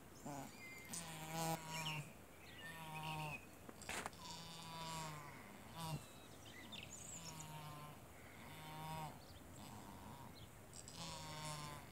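Ewe in labour calling again and again with short, low bleats, about eight of them, while she strains through contractions. Birds chirp faintly in the background.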